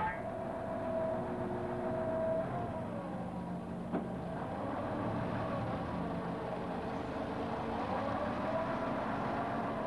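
Forklift truck's engine running steadily, its pitch dipping and then rising again as it works, with a single sharp click about four seconds in.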